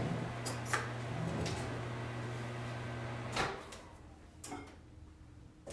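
Microwave oven running with a steady low hum, reheating chocolate almond bark. About three and a half seconds in, the hum cuts off with a click as the door is opened, and a lighter click follows about a second later.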